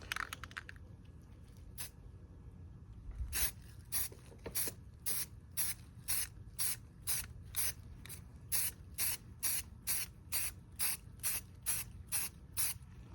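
Aerosol spray can of rust-preventive primer being sprayed in short, quick bursts, about two a second, as a second coat goes on over the bare metal.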